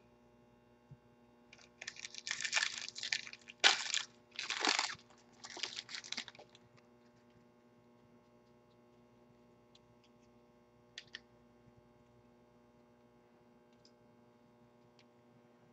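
Foil trading-card pack wrapper crinkling and tearing as it is ripped open and the cards pulled out, in several crackly bursts over a few seconds, followed by a couple of faint clicks.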